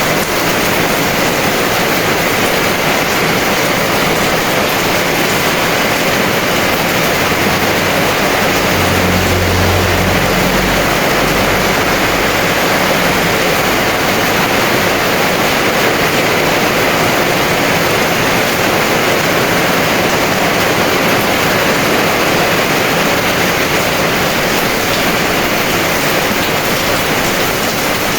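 Heavy rain pouring steadily, with a brief low rumble about nine to eleven seconds in.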